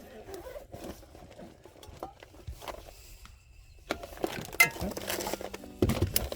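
Handling noises: scattered clicks, light clinks and rustling, with louder knocks about four and a half and six seconds in.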